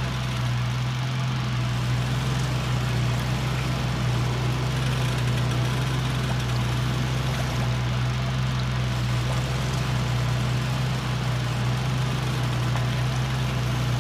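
Electric desk fan running steadily: a constant low motor hum with a rush of blown air.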